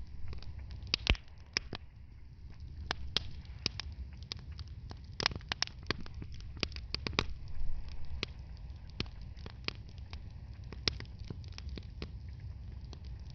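Wood fire in a fireplace crackling, with irregular sharp pops and snaps, a few louder ones, over a steady low rumble.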